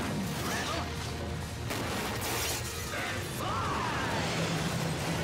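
Cartoon sound effects of a pile of logs tumbling and crashing down, mixed with background score music.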